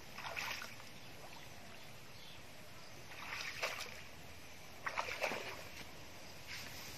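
Muddy pond water splashing and sloshing around a person's legs as she wades through it knee-deep, in four separate bursts a second or two apart.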